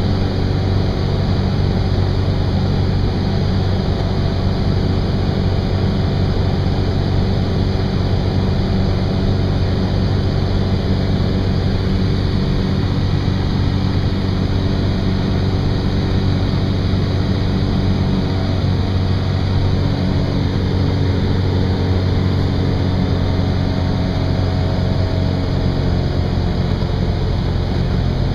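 Zenith STOL CH 750's engine and propeller droning steadily on the approach, heard inside the cockpit together with the rush of air past the cabin.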